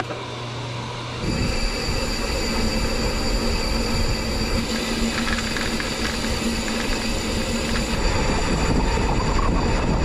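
Mountain bike rolling fast on a rough country road: tyre rumble and road noise with wind buffeting the microphone, getting suddenly louder about a second in and staying loud.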